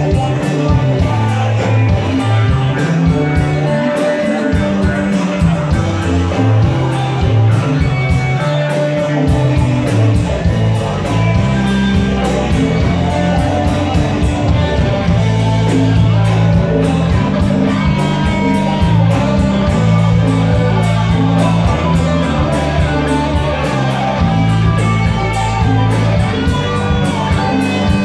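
Live band playing: electric guitar, drum kit, bass and keyboards, with the bass line growing fuller and steadier about a third of the way in.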